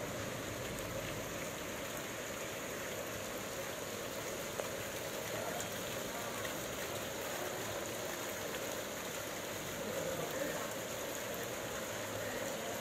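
Heavy rain falling steadily onto a flooded paved street and the standing water on it.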